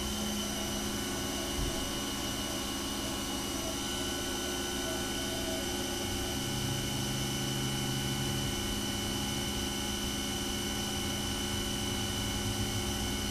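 CNC vertical milling machine spindle coming up to speed at the start, then running with a steady high whine over a low hum, coolant spraying onto the brass plate as a 5/32" two-flute carbide end mill begins the program.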